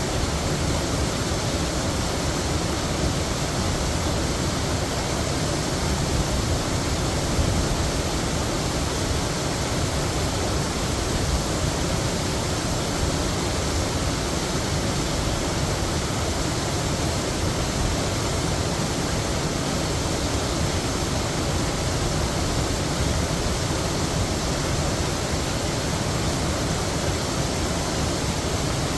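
Heavy waterfall: a steady, unbroken rush of falling water.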